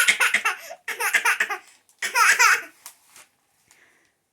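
A young child laughing in three loud bursts, stopping about two and a half seconds in.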